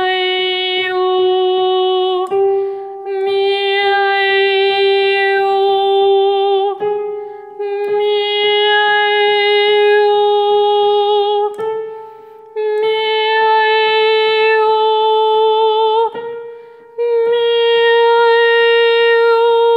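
A woman singing a head-voice exercise in trained classical style: a series of held notes with vibrato, the vowel shifting within each note, each new note a step higher than the last, with short breaks between them. It is a mask-placement (maschera) exercise with added resonance, the voice swelling as more resonance builds.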